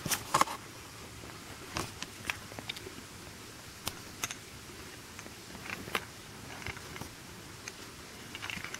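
Sugar glider joey chewing a yogurt treat: faint, irregular small clicks and crunches, a few at a time.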